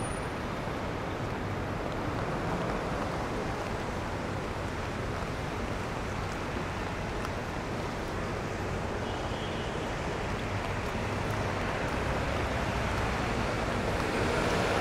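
Steady city street traffic on wet roads, a dense hiss of tyres on wet pavement that swells a little near the end.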